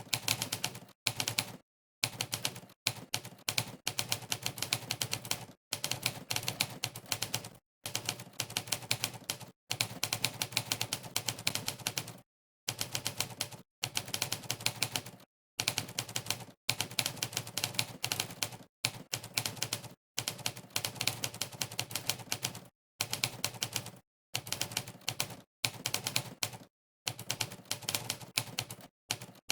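Monkeytype's 'typewriter' keystroke sound effect: rapid typewriter key clicks, one for each keypress, during fast typing. They come in runs of one to three seconds, broken by short, completely silent gaps.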